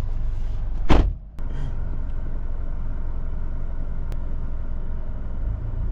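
Steady low rumble of a vehicle driving, heard from inside, with a sharp knock about a second in followed by a brief dip before the rumble resumes.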